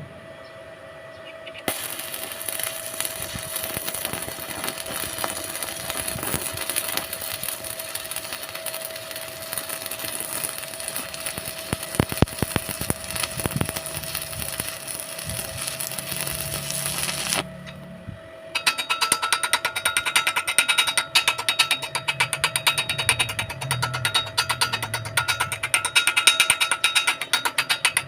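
Stick-welding arc crackling and sizzling in two runs: one from about two seconds in until about seventeen seconds, then, after a short break, a louder, sharper-crackling run until near the end.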